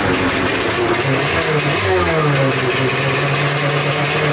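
Stand-up jet ski's two-stroke engine running, its revs rising about a second and a half in and then holding steady.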